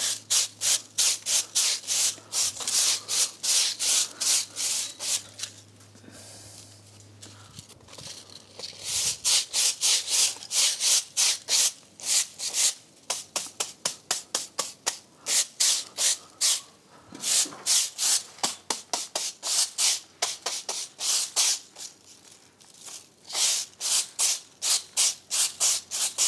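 Hand brush scrubbing fresh mortar joints on a brick wall to roughen their surface: quick back-and-forth scratchy strokes, about four a second, in spells with short pauses.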